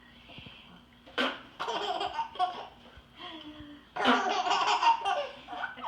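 Baby laughing in hearty belly-laugh bursts at an adult's fake sneezes: a sharp sneeze about a second in sets off giggles, and a louder round of laughter begins about four seconds in.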